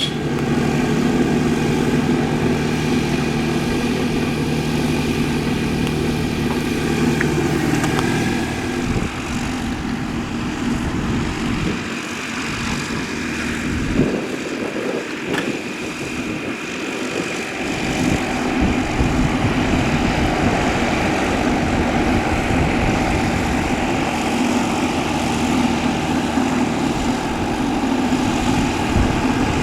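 Piston engine and propeller of a light single-engine aircraft running at close range. The note shifts about a third of the way in and strengthens again a little past the middle.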